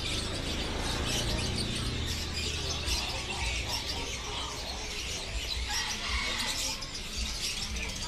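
Many caged songbirds chirping and trilling at once, a dense overlapping chorus of short high calls, over a steady low rumble.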